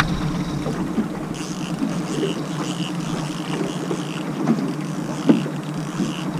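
Mercury outboard motor running steadily at trolling speed, a constant low hum. A faint high chirp repeats about twice a second from about a second in.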